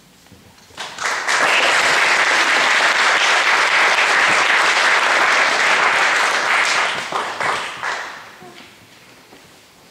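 Audience applauding: it starts about a second in, holds steady for several seconds, then thins to a few scattered claps and dies away near the end.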